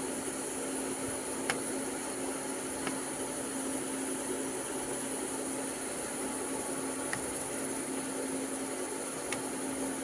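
Steady hiss with a constant low hum and a high whine, and a few faint clicks, about four over the stretch.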